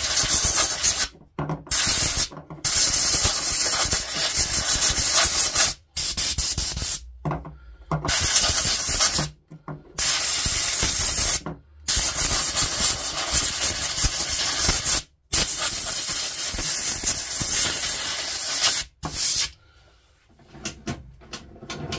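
A pressurised spray hissing in about nine bursts of one to three seconds each, each cutting off sharply, as dirt and residue are blasted off a small two-stroke strimmer carburettor. The spraying stops about three-quarters of the way in, leaving faint handling clicks.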